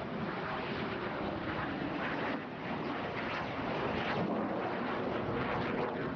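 Aircraft engine noise from a fixed-wing aircraft: a steady, loud rushing drone with a brief dip about two and a half seconds in.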